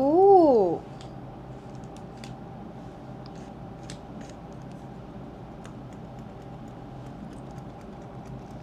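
Sparse light clicks and taps of a small empty container being handled and examined, over a steady electrical hum.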